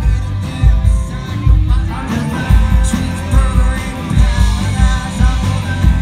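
Amplified live rock band playing with a steady kick-drum and bass beat, with a singer's voice over it.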